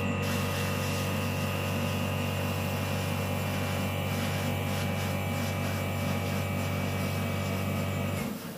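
Airbrush compressor running with a steady hum while the airbrush sprays red paint onto nail tips with a hiss of air; the compressor cuts off near the end.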